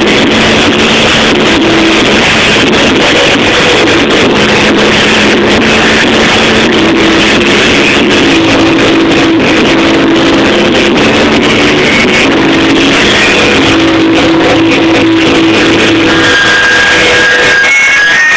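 Rock band playing live, loud and distorted, with electric guitar notes held over a dense wash of sound. Near the end the playing thins to a few high sustained tones.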